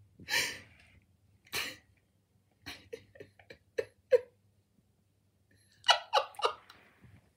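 Robot dogs (a Sony Aibo ERS-1000 and a Mio Pup) making short electronic dog sounds: two breathy sniff-like puffs, then a run of small clicks and chirps, then a quick cluster of yips about six seconds in.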